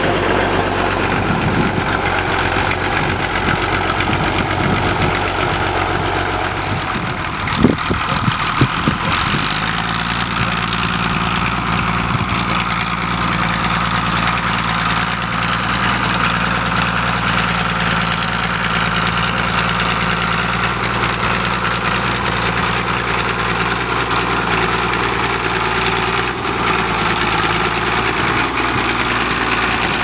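Fordson Super Major's four-cylinder diesel engine running steadily under load while pulling a mounted plough through stubble. A few sharp knocks come about a third of the way in.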